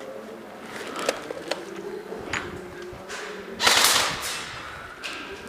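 Sharp cracks of airsoft guns firing: a few single shots in the first half, then a louder, noisy burst lasting about half a second.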